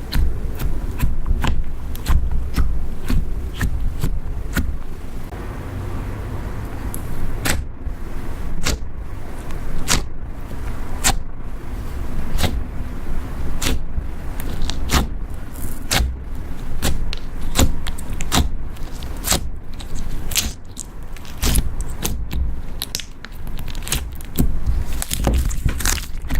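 Butter slime being kneaded and squished by hand, with many irregular sticky pops and clicks over a low rumble.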